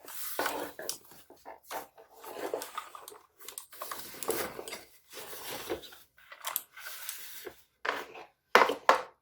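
Cardboard keyboard box and its packaging being opened and unpacked by hand: irregular rustling, scraping and rubbing of cardboard, with a few sharp knocks near the end.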